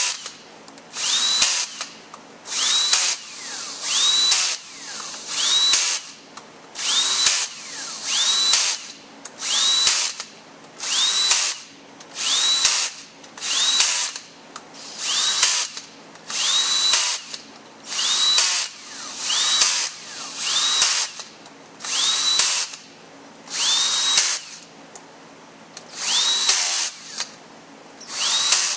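Cordless drill/driver running T27 Torx bolts down into a ZF5HP24 automatic transmission's valve body, one bolt after another: about twenty short bursts, roughly one every second and a half, each with a motor whine that rises as it spins up and then holds. The bolts are being snugged most of the way before final torquing.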